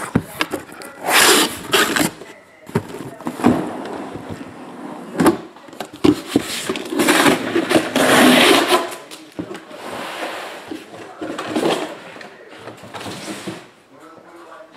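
Shrink-wrapped cardboard hobby boxes being pulled out of a cardboard shipping case and set down on a table: irregular rustling and scraping with several sharp knocks.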